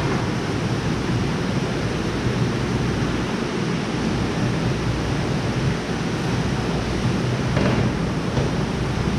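Steady rushing of water flowing through the hatchery tanks, with a low steady machine hum underneath.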